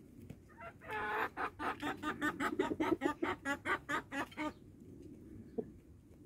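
Rooster clucking in a rapid run of short clucks, about five a second, starting about a second in and stopping some three and a half seconds later.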